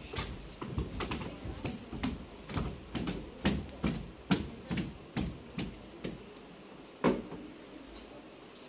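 Footsteps on a hollow wooden stage floor: a steady run of knocks, about two a second, that stops after about five and a half seconds. A louder single knock follows about seven seconds in.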